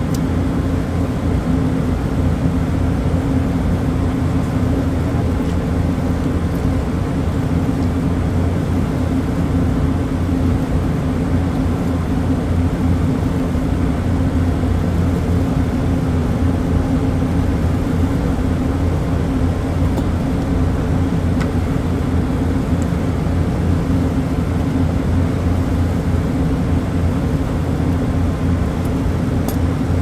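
Steady hum of commercial refrigeration compressors running in a rack: a low drone with a steady higher tone, unchanging, with a few faint ticks of tubing being handled.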